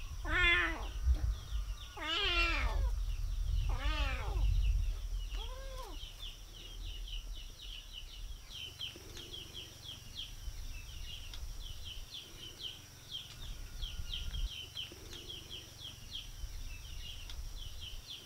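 Kitten meowing: four drawn-out meows, each rising then falling in pitch, over the first six seconds.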